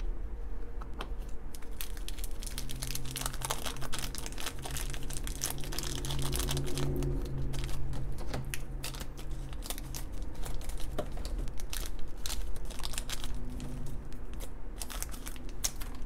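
Crinkling and crumpling of a metallic foil blind-bag wrapper as it is handled and torn open, a dense, irregular crackle with no pauses.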